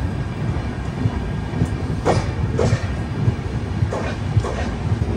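Passenger train running, heard from inside a sleeper coach: a steady low rumble, broken twice by a pair of clacks as the wheels cross rail joints.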